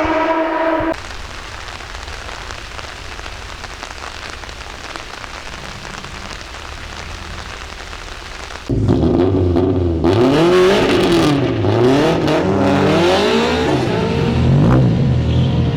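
Racing car engine: a held engine note cuts off abruptly about a second in, followed by a quieter stretch of steady hiss with a faint low engine hum. From about nine seconds in, an engine runs loud and hard, its pitch rising and falling repeatedly as it revs up and backs off.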